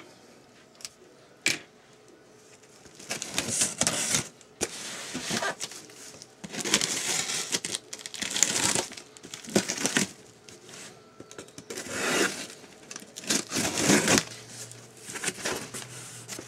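A cardboard shipping box being opened by hand: packing tape tearing and packing material crinkling and rustling in repeated bursts, after a few sharp clicks near the start.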